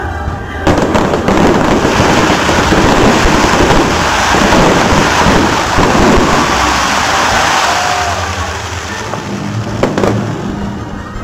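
Fireworks barrage: many shells launching and bursting at once, with dense crackling, starting suddenly about a second in as a continuous wash of overlapping bangs. It eases off near the end, where one more sharp bang stands out.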